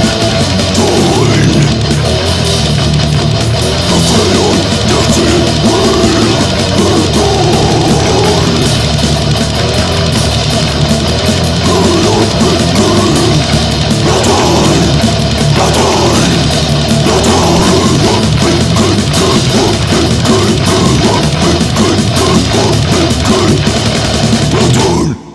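Death metal played by a full band: heavily distorted guitars over fast, dense drumming, loud throughout, cutting off abruptly at the very end.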